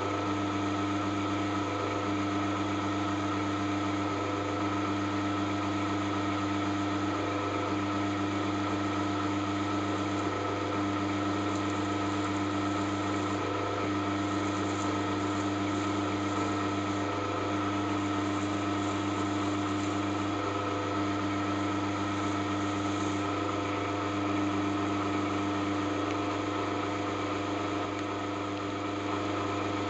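Drilling machine running steadily at about 500 rpm while a 1.5 mm bit with cutting paste bores slowly into the head of a socket head cap screw for a safety-wire hole: an unbroken motor hum holding a few fixed tones.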